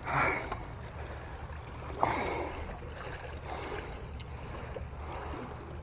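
Sea water washing against shoreline rocks over a steady low rumble. There are two brief louder sounds, one right at the start and a sharper one about two seconds in.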